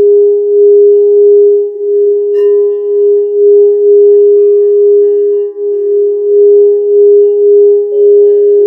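Quartz crystal singing instrument ringing with one strong, steady low tone that pulses gently in loudness. A light tap about two seconds in adds fainter higher ringing tones.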